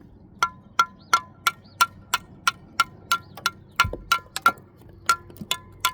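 A steel brick trowel taps a brick again and again to trim a small piece, about three sharp metallic clinks a second, each with a brief ring. There is a short pause about three quarters of the way through and one dull thump just before it.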